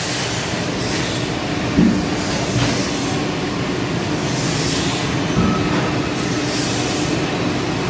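A steady mechanical drone with a constant hum running under it, and two short knocks, about two and five seconds in.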